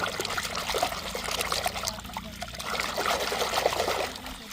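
Water pouring and splashing in an uneven trickle, as toy cars are washed.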